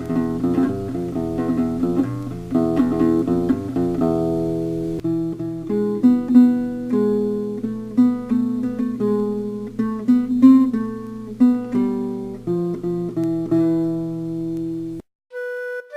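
Acoustic guitar music: quick strummed chords for the first few seconds, then a picked melody over held chords. It stops about a second before the end, and a keyboard-like melody begins.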